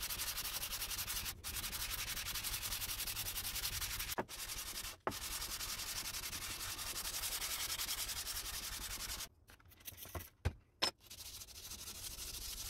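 Cast-iron block plane sole rubbed rapidly back and forth by hand on abrasive paper laid flat, a fast, even scratchy stroking: flattening the sole and taking out scratches. It stops for a moment about two-thirds through, with a couple of light knocks, then starts again.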